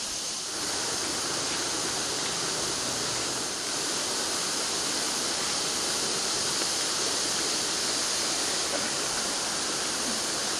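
A steady, even rushing noise, brightest in the high range, growing a little louder about half a second in.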